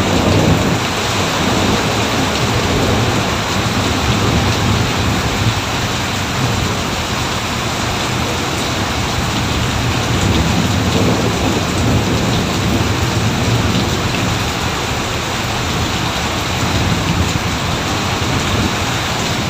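Steady heavy rain with low rolling thunder, the rumble swelling near the start and again around the middle.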